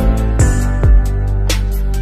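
Background music with a steady drum beat over sustained chords.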